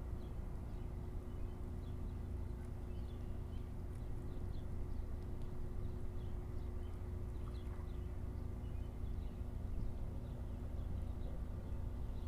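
Outdoor ambience: a steady low rumble under a constant droning hum, with faint short bird chirps scattered throughout.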